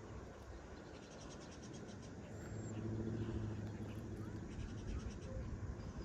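A low engine hum that swells and fades around the middle, like a vehicle passing at a distance, over outdoor background noise.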